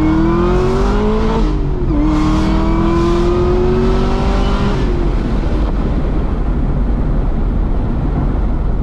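Supercharged V8 of a heavily modified Camaro ZL1 pulling hard under full throttle, heard from inside the cabin. The engine note climbs and drops sharply once about two seconds in as the driver shifts up, then climbs again. About five seconds in the pull ends and a steady rumble of engine and road noise is left.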